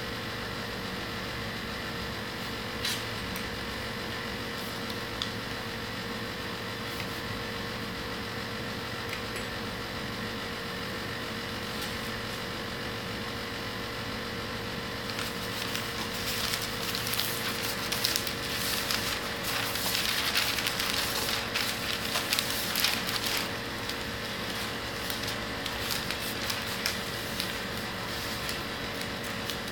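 Paper rustling and crackling as sheets are handled, unrolled and spread out on a table, loudest for several seconds in the middle, over a steady background hum.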